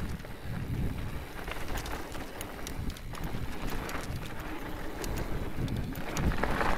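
Mountain bike tyres rolling fast over loose gravel and packed dirt, with wind buffeting the microphone and scattered small clicks and rattles from stones and the bike. The rumble gets louder near the end.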